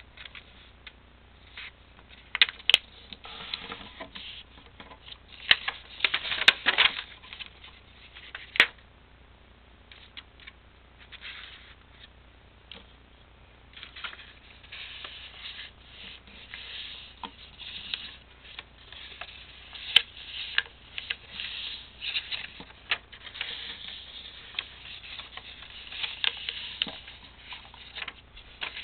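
A sheet of paper being folded by hand into an origami triangle: irregular rustling and crinkling with sharp crackles as creases are pressed, sparser for a few seconds in the middle.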